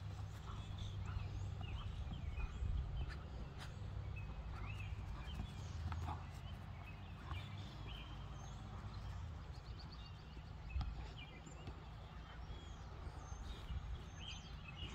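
Outdoor ambience: small birds chirping here and there over a steady low rumble, with a few soft thumps.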